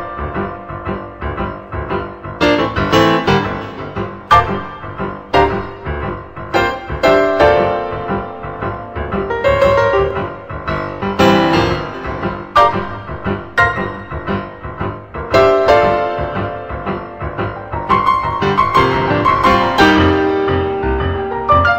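Background piano music, a run of separate struck notes and chords without a steady beat.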